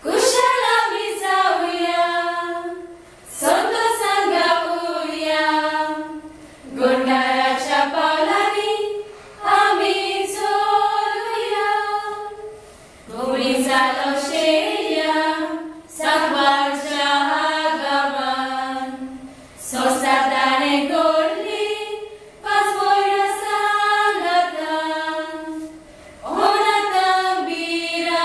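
A small group of young women singing together unaccompanied, in short phrases of about three seconds with brief breaks between them.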